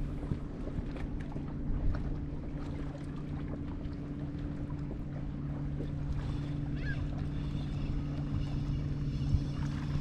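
Steady low hum of a boat motor, with rumble from wind on the microphone and a couple of short clicks. Faint bird-like chirps come in near the end.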